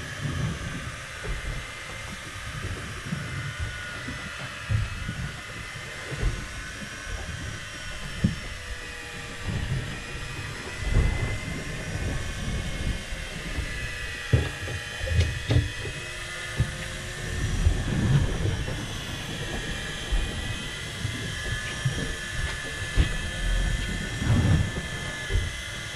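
Electric deep-drop fishing reel, powered from a 12 V battery, winding line in: a steady motor whine that wavers slowly in pitch, over low rumbling and irregular thumps.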